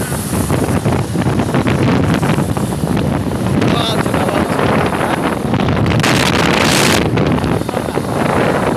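Wind buffeting the microphone on a moving motorcycle, over engine and road noise, with a louder rush of hiss about six seconds in that lasts about a second.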